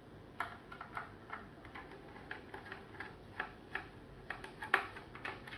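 Small screwdriver turning out a screw from the plastic case of a Huawei B622 4G router: a run of light, irregular clicks, about two or three a second, one louder click near the end.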